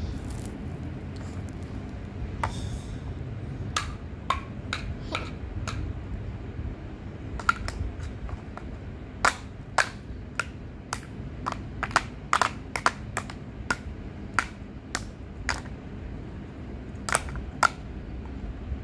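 Large plastic toy building blocks clicking and knocking together as a toddler presses and stacks them: about twenty sharp, irregular clicks, starting a few seconds in and coming thickest in the middle.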